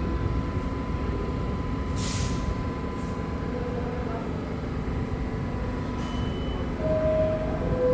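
New York City subway train standing at the platform, its motors and equipment giving a steady low rumble and hum, with a short hiss of air about two seconds in. Two brief tones, the second lower than the first, sound near the end.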